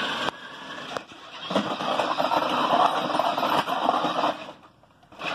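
Tyco Big Bad Kong RC monster truck's battery-powered electric motor and gearbox running in bursts as it drives over concrete. It is loud from about a second and a half in, stops about four and a half seconds in, and gives one short burst again at the very end.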